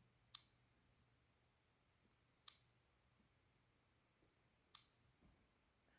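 Three short, sharp clicks about two seconds apart against near silence.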